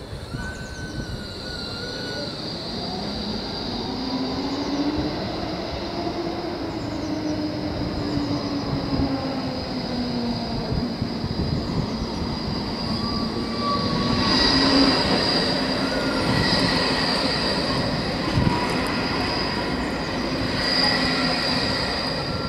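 Trams running over a level crossing: a slowly gliding motor whine and rail rumble that grow louder from about halfway through as a tram approaches and crosses near the end. A steady high-pitched ringing, the crossing's warning bell, sounds throughout.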